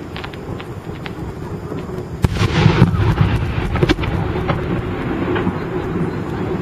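Aerial fireworks shells bursting: a sharp bang about two seconds in, followed by crackling and another crack about four seconds in, over a steady low rumble.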